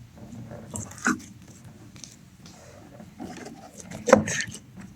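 Light handling sounds: small objects being picked up and set down, with a soft click about a second in and a louder knock about four seconds in, over low room noise.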